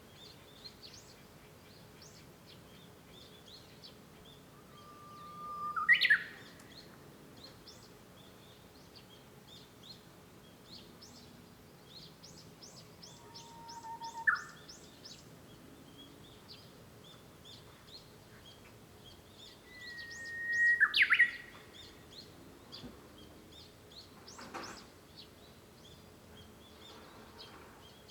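Japanese bush warbler (uguisu) singing its 'hoo-hokekyo' song three times, each a long held whistle that breaks into a quick flourish, the last with the longest held note. Faint chirps of other small birds go on throughout.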